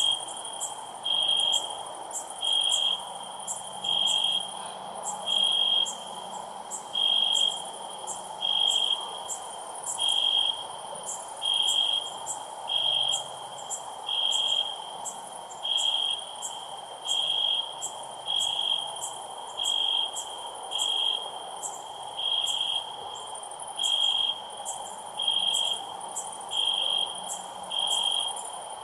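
Crickets chirping at night: one loud, high chirp about every second and a half, over fainter, faster high-pitched insect ticking and a soft background hum.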